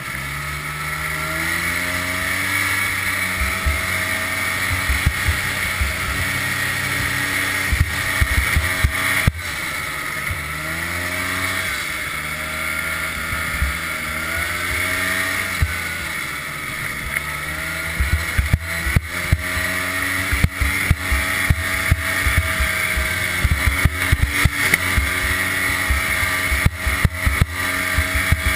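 Ski-Doo Safari Citation 250 snowmobile's two-stroke engine running under way, its pitch rising and falling several times with the throttle. Frequent sharp knocks and rattles come through, thicker in the second half.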